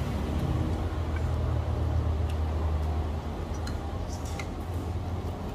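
A spoon and fork clinking lightly against a plate a few times, a little past the middle, over a steady low background rumble.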